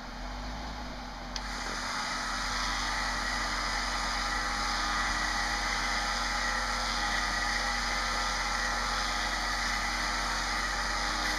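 Recon 10.5K electric winch pulling in under load: a click about a second in, then a steady mechanical whine from the winch motor and gears as it drags the Jeep up the rock ledges.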